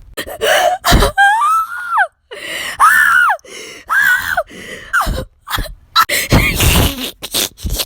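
Wordless high-pitched shrieks and squeals from a person's voice, in short arching cries about once a second, mixed with sharp gasps and breathy bursts.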